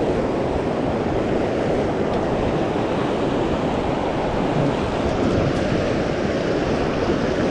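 River rapids rushing past an inflatable boat: a steady, unbroken wash of whitewater, with some wind on the microphone.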